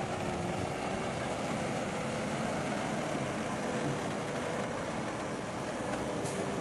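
Komatsu bulldozer's diesel engine running steadily, a constant rumbling drone with a faint steady hum.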